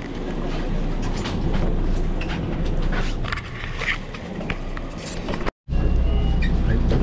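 Steady running rumble inside a crowded Okinawa Yui Rail monorail car. It drops out for a moment near the end, then comes back as a louder low hum.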